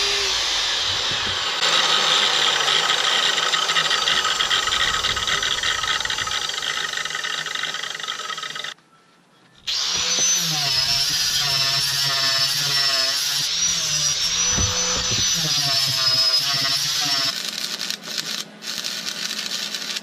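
An abrasive chop saw cuts square steel tubing with a loud, steady grinding noise that stops about nine seconds in. After a short pause, an angle grinder runs against the cut ends of the tubing with a high, wavering whine, then drops off near the end.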